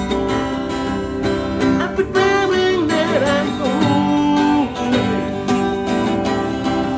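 Music with acoustic guitar and a steady beat.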